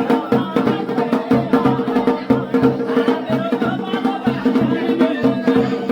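Garhwali folk drumming, dhol and damau beating a steady rhythm for a mandan ritual dance, with a sustained held melody over the drums.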